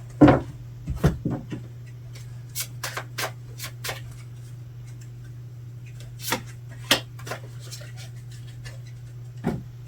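Tarot cards being handled, shuffled and laid down on a table: scattered short taps and rubbing, over a steady low hum.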